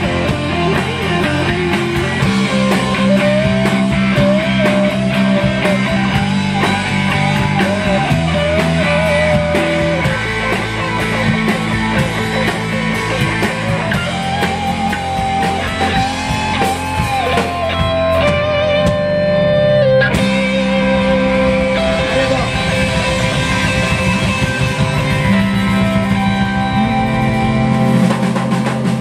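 Live rock band playing an instrumental passage: distorted electric guitars, bass and drums, with a lead melody bending and wavering in pitch over the chords.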